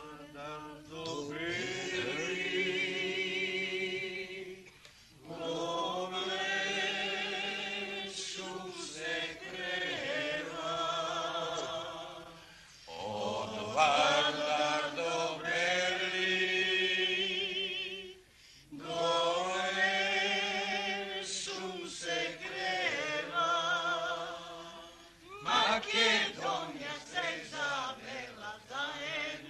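Voices singing a slow folk song without instruments, in long held phrases with short breaks between them.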